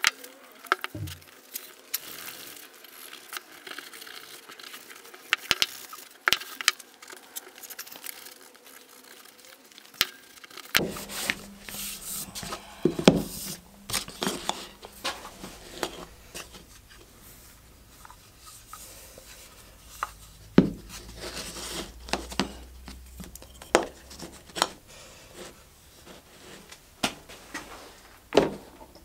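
Wooden hand plane parts being handled and fitted on a workbench: scattered small clicks, taps and knocks of wood and metal pieces set down and pushed into place. A low hum comes in about eleven seconds in.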